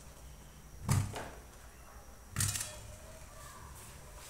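Peeled potatoes dropped into an empty metal pot: two dull thuds, about a second and a half apart.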